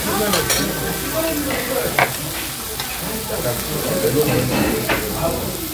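Pork belly, mushrooms and kimchi sizzling on a tabletop grill plate, with a few sharp clicks, the loudest about two seconds in.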